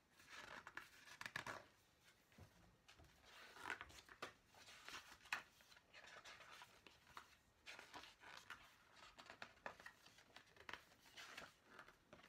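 Faint rustling and handling of paper and small cardboard packaging: a string of soft, irregular crinkles and light clicks.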